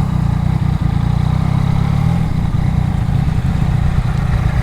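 2018 Yamaha MT-09's three-cylinder engine running steadily at low revs while the motorcycle is ridden.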